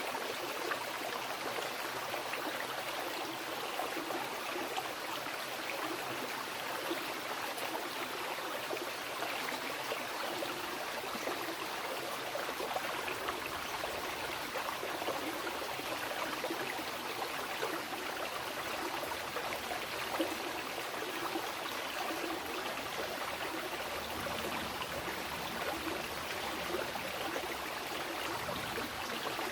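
Wild river flowing: a steady, unbroken rush of running water.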